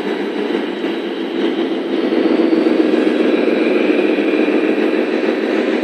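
Radio-controlled Tamiya scale truck running, its sound unit playing a steady diesel-engine rumble that grows louder in the middle as the truck drives close.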